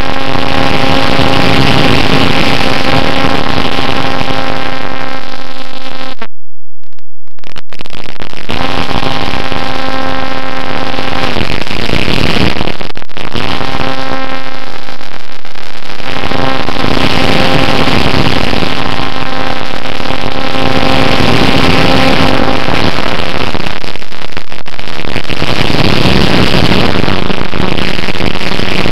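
Electric motor and propeller of a Bixler model plane, whining steadily and stopping and starting several times as the throttle is opened and closed, over loud wind rush on the onboard camera. The sound cuts out completely for about a second some six seconds in. The whine is lower in pitch near the end.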